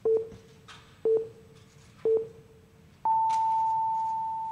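Time signal marking 14:46: three short low pips a second apart, then a long higher tone beginning about three seconds in, slowly fading. The long tone marks the exact minute and the start of a minute's silent prayer.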